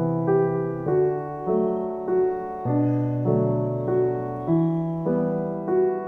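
Background music: a keyboard tune in a piano sound, notes struck about every 0.6 seconds and fading between strikes.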